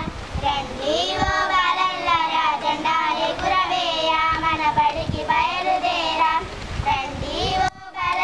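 Schoolchildren singing a song together, cut by a brief dropout near the end.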